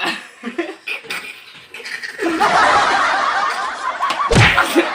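Laughter, scattered at first, then swelling about two seconds in to a loud, continuous laugh, with a single thump near the end.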